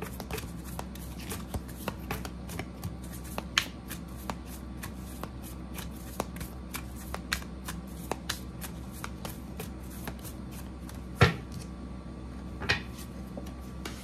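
A deck of oracle cards being shuffled overhand by hand: a quick, uneven run of soft card slaps and clicks, with a few sharper snaps, the loudest one about eleven seconds in.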